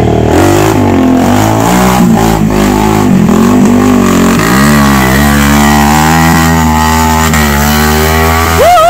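Off-road motorcycle engine revving, its pitch swinging up and down, then steadier, with a sharp rev near the end that climbs steeply and falls away.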